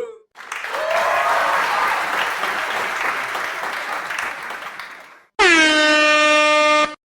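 Two meme sound effects in a row: about five seconds of a crowd cheering that fades away, then a single held air horn blast of about a second and a half that cuts off abruptly.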